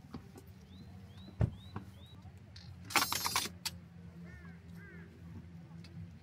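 Someone moving about inside a truck's rooftop tent: a sharp click about a second and a half in, then a brief, loud metallic jingling rattle about three seconds in. Short chirps sound in two small groups, and a low hum runs steadily underneath.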